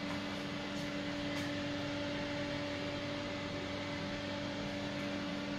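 Steady mechanical hum, a low tone with a higher overtone, over a constant hiss.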